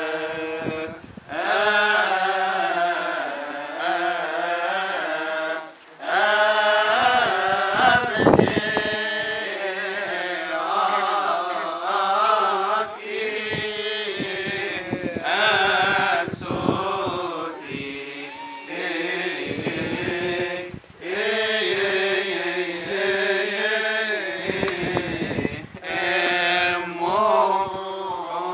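Coptic Orthodox church hymn chanted in long, drawn-out melodic phrases, broken by short pauses for breath.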